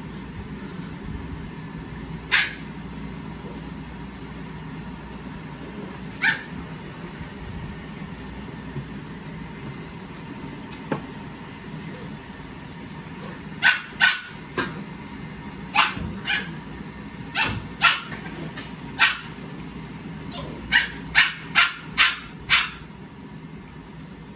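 Puppies barking and yipping while play-fighting, a Rottweiler puppy among Staffordshire puppies. There are single sharp barks about two and six seconds in, then a quick run of about a dozen high barks in the second half, over a steady low hum.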